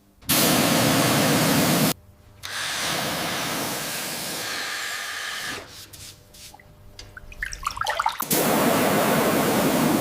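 Loud rushing hiss in two bursts that start and stop abruptly, with softer hissing between them and a brief rising whine shortly before the second burst.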